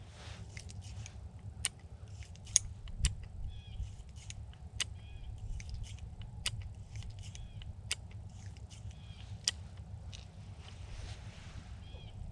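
Sharp metallic clicks from a single-action .22 revolver being handled, a few irregular clicks every second or two, typical of swinging open the loading gate, working the ejector rod and loading cartridges into the cylinder. Birds chirp faintly over a low steady rumble.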